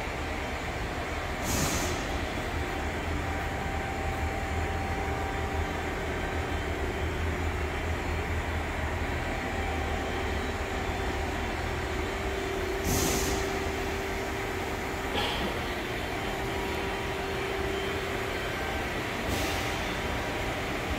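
Steady machine-shop hum with a low drone and a faint steady tone, broken three times by a short burst of air hiss and once by a small click.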